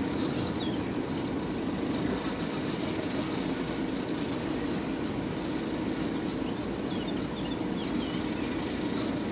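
Steady engine and road rumble heard from inside a slowly moving car's cabin, with a few faint high chirps over it.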